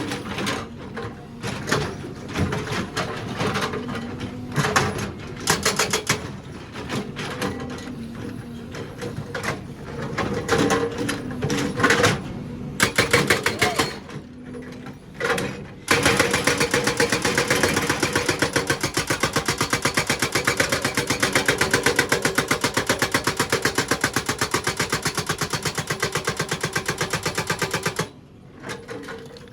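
Excavator breaker hammer at work. For the first half there are irregular knocks and clanks. About halfway in, a fast, steady hammering starts and runs for about twelve seconds before it cuts off suddenly.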